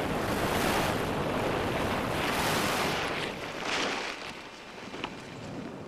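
Wind rushing and buffeting the microphone, loudest over the first three seconds with another gust near four seconds, then easing off.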